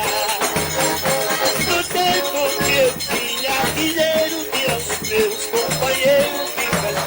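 Forró pé-de-serra music: a sanfona (button accordion) plays a melody over a steady low bass beat, with light shaken percussion.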